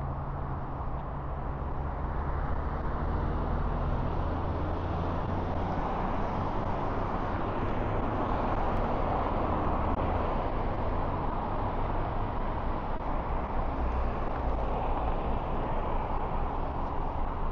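Road traffic passing on a multi-lane highway: a steady rush of tyres and engines with a low rumble, a little louder around the middle.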